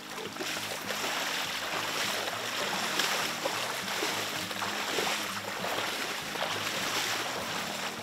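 Water sloshing and splashing as several people wade in waders through shallow marsh water, with a few louder splashes along the way.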